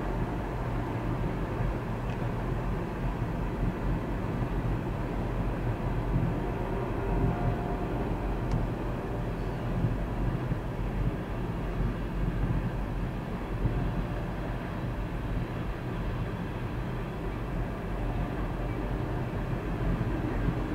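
Loaded covered hopper cars of a freight train rolling past a grade crossing: a steady rumble of steel wheels on the rails.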